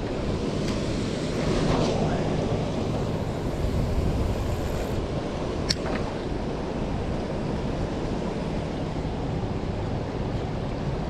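Wind rumbling on the microphone over the sound of moving water, steady with no clear pitch. One sharp click about six seconds in.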